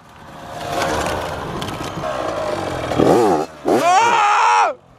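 Yamaha YZ85 two-stroke dirt bike ridden toward the microphone, its engine growing louder over the first second, then revving hard as the rider lifts the front wheel into a wheelie. The revs sweep up and down twice in the second half.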